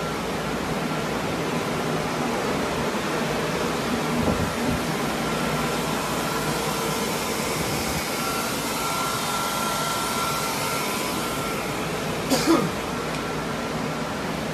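Water-damage drying equipment running: air-mover blowers and a dehumidifier giving a steady rush of blown air with a faint whine. A brief sharp noise comes near the end.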